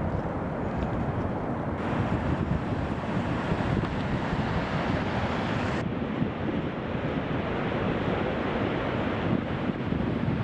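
Steady rushing of water pouring over Niagara Falls, with wind on the microphone. The sound's tone shifts abruptly twice, about two and six seconds in.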